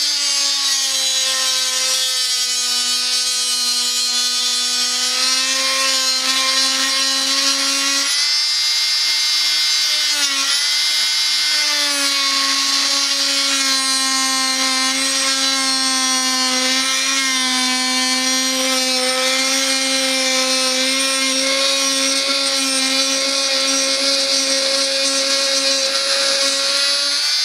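Renovator 250-watt oscillating multi-tool cutting into an old wooden board with a semi-circular blade: a loud, steady high buzz with a hiss of the blade in the wood. Its pitch sags briefly a couple of times as the blade bites.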